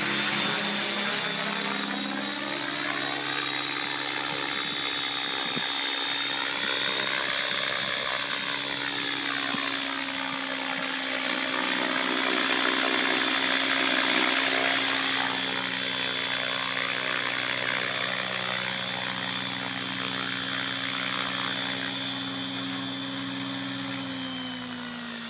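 Align T-Rex 700 electric RC helicopter in flight: a steady whine from its main rotor and electric motor, rising and falling in pitch as it swoops past. Near the end it is on the ground and the whine drops in pitch as the rotor spools down.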